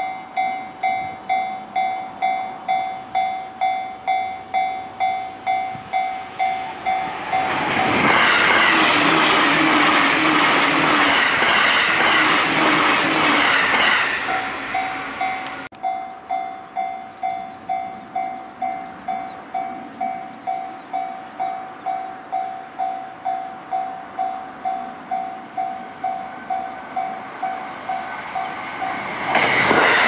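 Japanese level-crossing warning bell ringing in a fast, even rhythm while a train passes at high speed, its wheels and running noise drowning the bell for about six seconds. After a break the bell rings on alone, and just at the end a second fast train, an E657-series limited express, arrives with a loud rush.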